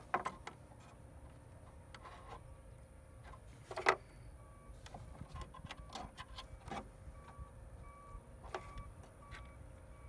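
Light rustling and small clicks of hands handling thin electrical wires and plastic crimp connectors, with one sharper knock about four seconds in. Faint short beeps repeat in the background in the second half.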